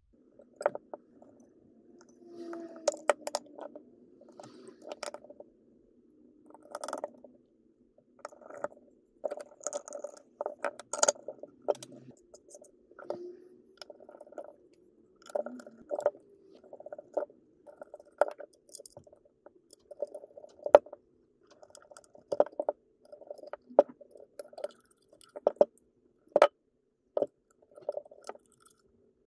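Irregular clicks, taps and scrapes of the Amazon Echo Pop's plastic case and internal parts being handled and screwed back together with a precision screwdriver, over a faint steady low hum.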